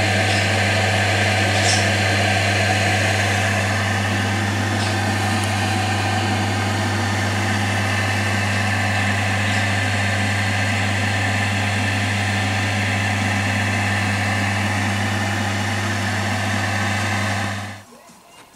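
Round stacking-tray food dehydrator running: its fan blowing with a steady low electrical hum. The sound cuts off suddenly near the end.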